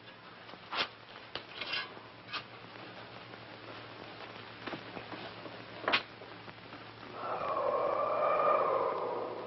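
Scattered knocks and scrapes of tools digging into stony ground, a sharp one about six seconds in. About seven seconds in, a louder wavering drone with a rushing edge swells up and fades toward the end, over a faint steady hum from the film soundtrack.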